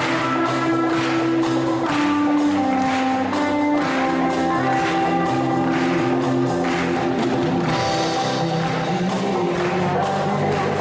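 Live band playing the instrumental opening of a worship song: guitar with drums and light percussion keeping a steady beat, without singing.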